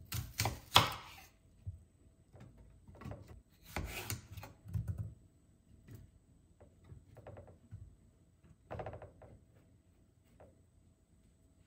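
Objects being handled: a series of knocks, clicks and rubbing, with a sharp clack about a second in and further groups of knocks about four and nine seconds in.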